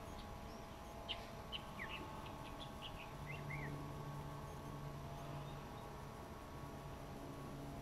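Small birds chirping: a quick run of short, high calls over the first few seconds, then fading out, against a faint steady hum.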